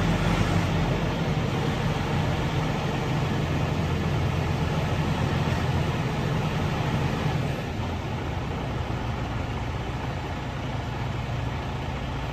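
Detroit DD15 inline-six diesel of a Freightliner SD122 dump truck idling steadily, a little quieter from about seven and a half seconds in.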